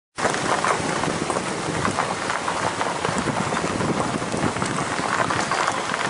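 Water of a forest creek rushing and splashing over rocks: a steady hiss full of small irregular splashes.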